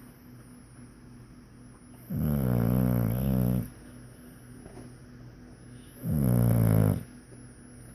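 Snoring: two loud snores, the first about two seconds in and lasting about a second and a half, the second about six seconds in and lasting about a second.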